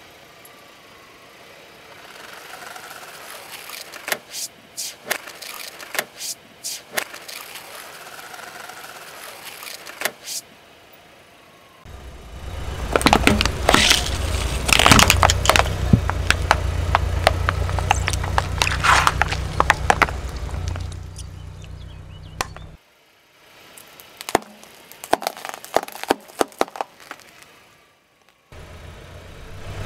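A car tyre rolls over objects one after another and crushes them with sharp cracks, pops and crunching of plastic and hard candy. Through the middle stretch the car's engine runs low and steady under a long spell of dense crackling.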